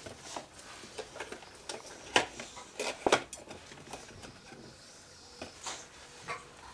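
Scattered light clicks and knocks in a small room, the two loudest about two and three seconds in.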